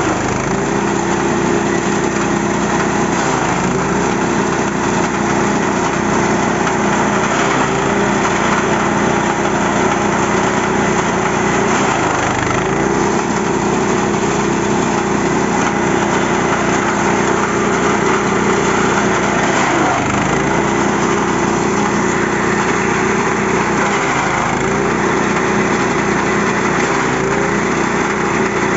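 Engine-driven forage chopper running at speed, cutting leafy fodder and blowing the chopped leaves out against a tarp. The engine note sags briefly several times as it is loaded with material.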